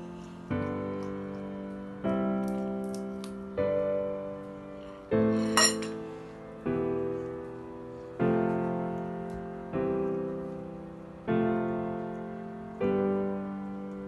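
Background piano music: slow chords struck about every one and a half seconds, each ringing and fading away. A brief clink sounds over it about five and a half seconds in.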